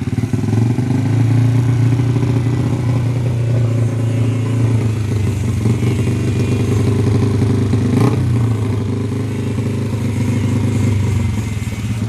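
Modified Honda XRM125 four-stroke single-cylinder engine, bored to 56 mm with a grind cam, stroker crank and 32 mm carburetor, idling steadily. There is a single click about eight seconds in.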